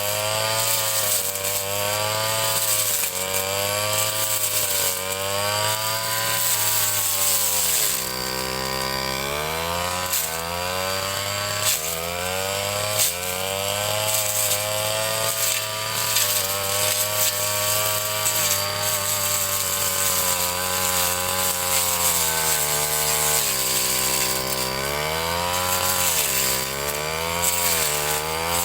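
Ryu 30.5 cc two-stroke brush cutter engine running hard, its pitch rising and falling every second or two as the throttle and the cutting load change, with deeper drops in revs twice. A few sharp ticks sound in the middle, where the blade strikes something.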